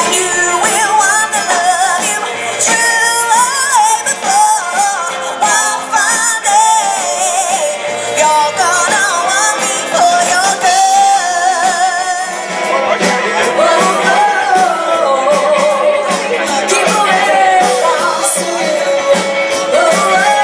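Live band playing a rock and roll number with female lead vocals over electric guitars and drums.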